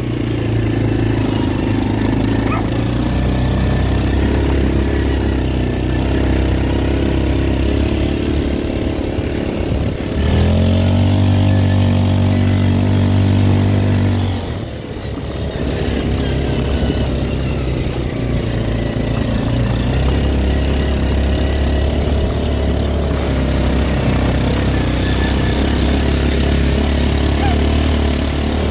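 Linhai ATV engine running as the quad is ridden along a gravel track. About ten seconds in, the engine note steadies and grows louder for a few seconds. It then drops away briefly and settles back to a steady run.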